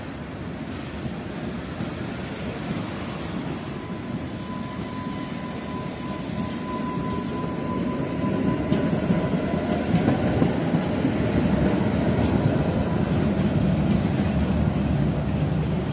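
Tatra T5C5 tram running past at close range, its wheels and running gear rumbling on the rails and growing louder about halfway through, with a thin steady whine above the rumble.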